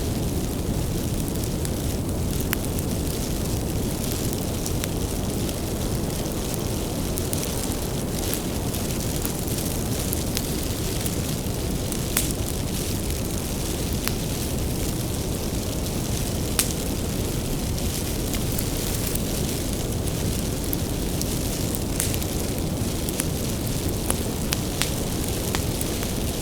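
Bonfire of burning firewood crackling, with a steady low rumble of flames and frequent sharp pops and snaps scattered throughout.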